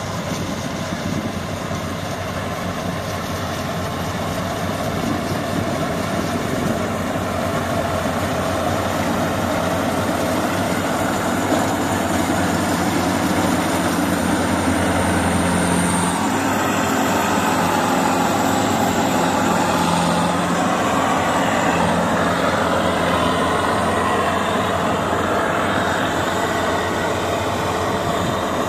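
FMWorld Star WS 8.0 tracked rice combine harvester running while it cuts and threshes rice: a steady, dense machine drone of engine and threshing gear, growing louder over the first half as the machine comes close.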